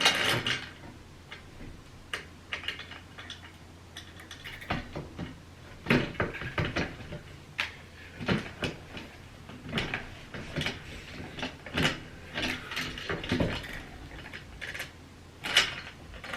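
Irregular metallic clicks and knocks of hand tools working on a BMX bike, tightening its bolts.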